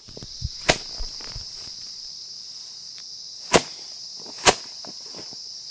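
Paddy being threshed by hand: bundles of rice stalks slapped down hard onto a stone, three sharp strikes, with the first less than a second in and two more close together past the middle. A steady high-pitched drone of crickets or cicadas runs underneath.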